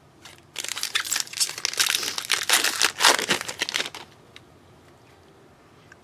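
Trading-card pack wrapper crinkling in the hands, a dense crackling rustle that starts about half a second in and stops about four seconds in.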